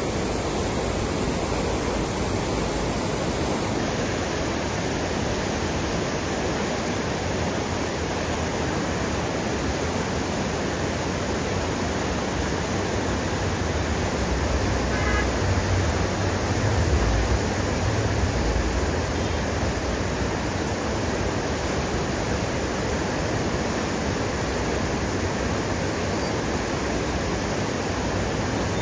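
Floodwater of the swollen Godavari River rushing in a steady, even wash of noise. A low rumble swells for a few seconds around the middle.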